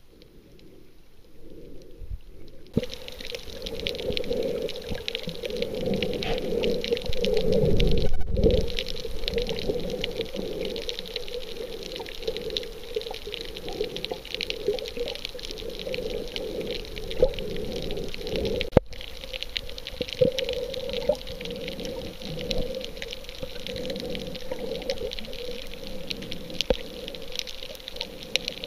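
Underwater sound from a camera below the surface: a steady wash of water with dense fine crackling and popping. It is muffled at first and becomes fuller about three seconds in.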